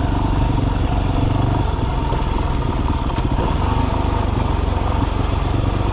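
Yamaha WR250R dual-sport motorcycle's single-cylinder four-stroke engine running at a steady, even throttle while riding on a dirt road.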